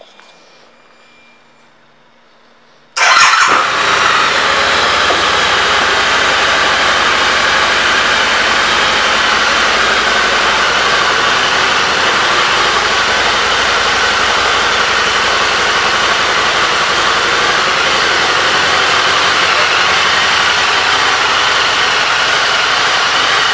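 2015 Harley-Davidson V-Rod Muscle's liquid-cooled 1250 cc Revolution V-twin starting up about three seconds in, with a brief loud burst as it fires, then idling steadily.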